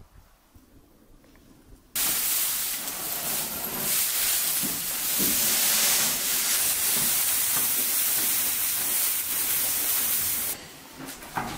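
Dry hay rustling and crackling as armfuls are pulled from a pile and dropped into a cattle feed trough: a loud, continuous rustle that starts suddenly about two seconds in and drops away sharply about a second before the end.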